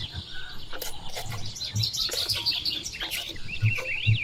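Several birds chirping and twittering, with a quick run of repeated notes near the end. Scattered clicks and a few soft low thumps come through underneath.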